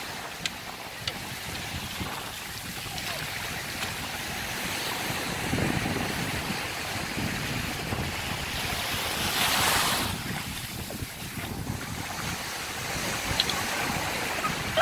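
Steady wind and surf noise on a beach, swelling in a gust about nine to ten seconds in. A few sharp clacks of wooden fighting sticks striking each other stand out, several in the first second.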